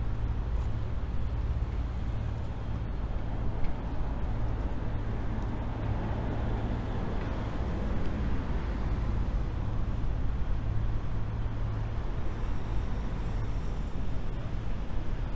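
Outdoor city ambience of a steady low engine hum under even road-traffic noise. A faint high-pitched whine joins about twelve seconds in.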